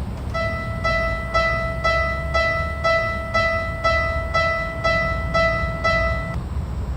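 Level crossing warning alarm ringing: a single pitched electronic ding repeated about twice a second, stopping about six seconds in, over a steady low rumble.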